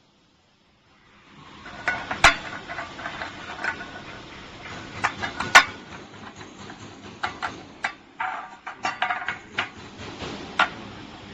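Metal food tin cans being handled, giving irregular sharp clinks and knocks as they touch each other and the table, the loudest two about two and five and a half seconds in. A steady background noise comes in after about a second of near silence.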